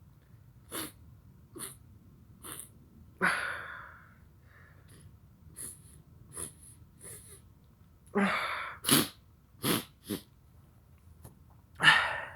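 A man sniffing sharply through his nose again and again, with three louder, longer breaths about three, eight and twelve seconds in, the last one the loudest. He is drawing chhinkni sneezing powder into his nose to make himself sneeze.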